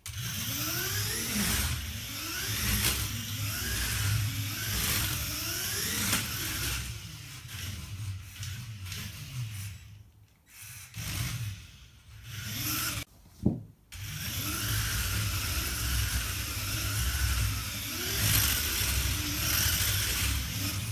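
Lego Technic remote-controlled car driving: its small electric motors whine up and down in pitch as it speeds up and slows, over a steady rattling, rubbing noise from the gears and tyres. The sound drops away briefly twice about halfway through, with a sharp click at the second pause.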